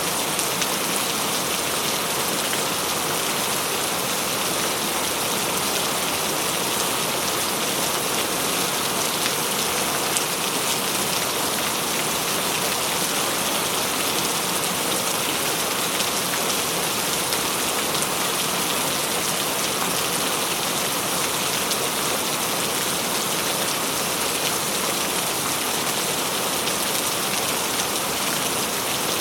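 Steady rain falling: an even, unchanging hiss with faint scattered ticks of individual drops.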